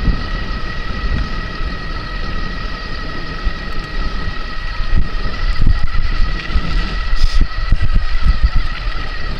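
Wind buffeting the microphone of an e-bike riding at steady speed, the rumble gusting louder about halfway through. A steady high two-note whine, from the e-bike's electric motor, runs under it.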